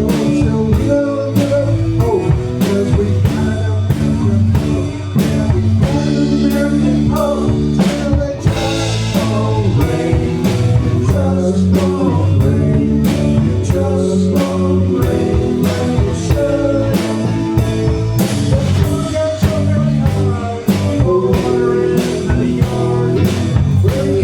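Live blues-rock band playing. The drum kit keeps a steady beat of about two strokes a second under sustained bass and guitar, with a cymbal crash about eight seconds in.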